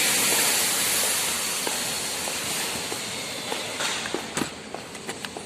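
A steady hiss that slowly fades, with scattered small clicks and taps of angle-grinder housing parts being handled and fitted back together during reassembly, most of them in the last two seconds.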